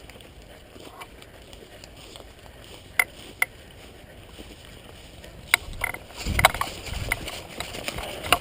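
Quiet background with two sharp clicks close together about three seconds in and another a couple of seconds later, then rustling and knocking of movement with more clicks near the end.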